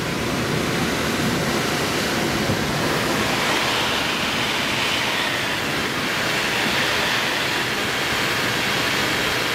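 Steady rush of air over an engineless glider's canopy and airframe in flight, an even hiss with no engine sound; it grows a little brighter a few seconds in.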